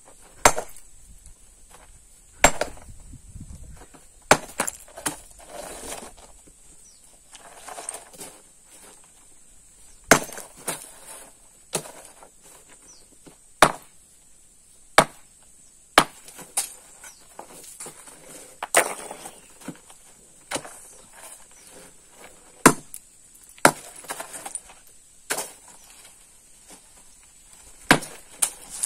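Hand hammer striking stone over and over, sharp ringing blows about once a second at an irregular pace, as stone blocks are split and shaped.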